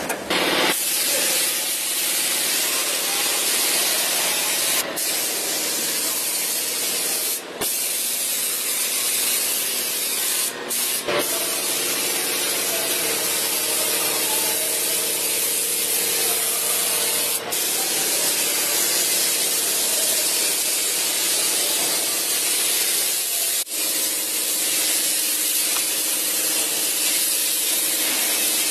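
Gravity-feed paint spray gun hissing steadily as it sprays paint onto car body panels, breaking off briefly a few times.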